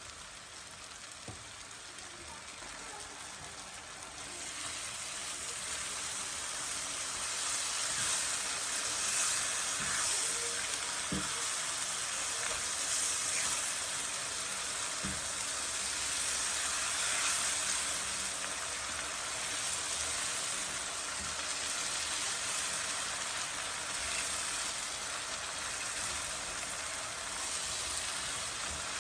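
Onion-tomato masala with spices frying in oil in a pot, sizzling steadily and growing louder about four seconds in as yogurt is stirred in. A few light knocks from the stirring.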